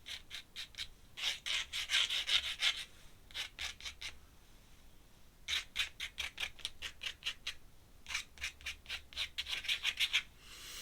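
Pen scratching on paper in quick back-and-forth hatching strokes, several a second, coming in four bursts with short pauses between them.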